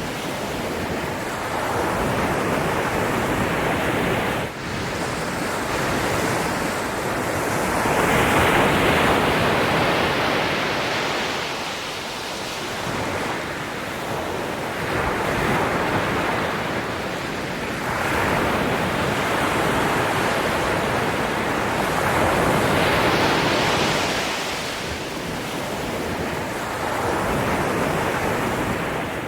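Ocean waves surging and washing on a shore, a continuous rush that swells and falls back every several seconds.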